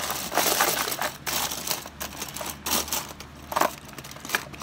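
Gel pens clicking and clattering against each other as they are handled and pushed into a storage box, a string of irregular clicks and rustles.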